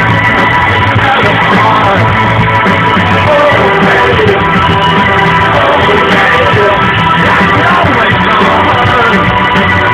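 Live band playing loud, steady electronic rock with guitar, dull-sounding with little treble.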